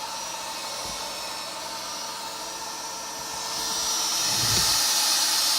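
DeWalt DWP611 compact router spinning with no load, muffled inside a sound-deadening enclosure. About three and a half seconds in, the enclosure door is opened and the router's high whine grows clearly louder, with a short low thump as it opens.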